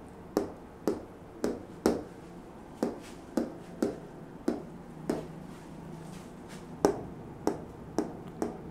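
A marker tip tapping on a whiteboard, one sharp tap on each word in turn, about two taps a second with a short pause partway through.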